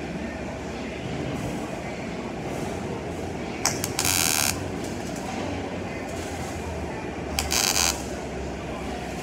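MIG welding arc crackling in two short bursts of under a second each, about four seconds in and again near the end, over a steady background hiss and hum.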